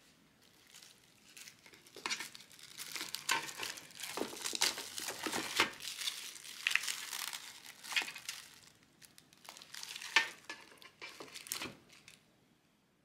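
Plastic film lining a tray of set chocolate bark crinkling and crackling as hands pull at it and work it loose, in irregular bursts.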